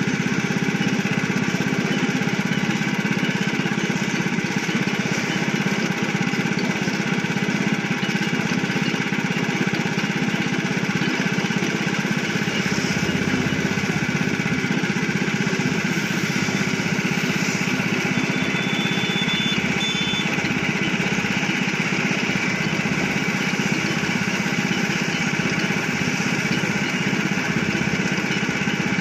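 Small air-cooled engine running steadily, driving a sugarcane juice machine's crushing rollers through belts and pulleys while cane is fed through. A brief faint high tone sounds about two-thirds of the way in.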